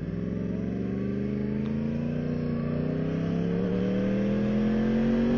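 Yamaha R1's inline-four engine pulling away from a stop and accelerating, its pitch rising steadily throughout.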